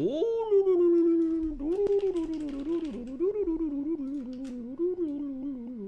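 A man making one long, drawn-out wordless vocal noise, an "ooo" held without a break. It swoops up at the start, then sags slowly and wobbles up and down in pitch. Faint keyboard clicks sound under it near the middle.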